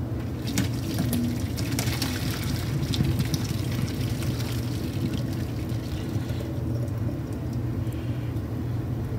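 Boiled russet potatoes and their hot cooking water poured from a stainless steel pot into a plastic colander in the sink: a rush of draining water with scattered knocks, easing off after about six seconds. A steady low hum runs underneath.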